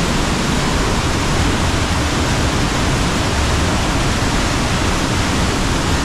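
The Varone waterfall plunging through its narrow gorge: a loud, steady rush of falling water.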